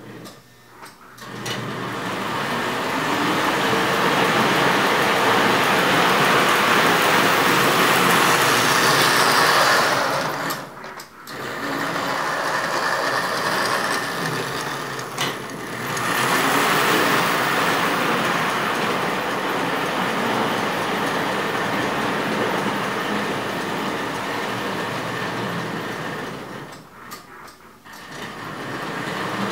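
American Flyer S-gauge model trains running on the layout: a steady whir of the motor and wheels rolling on the track. It drops away briefly about 11 seconds in and again near the end.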